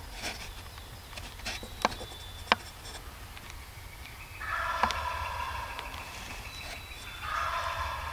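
Wild turkey gobbler gobbling twice, a long gobble about halfway through and a shorter one near the end, after a few sharp clicks earlier on.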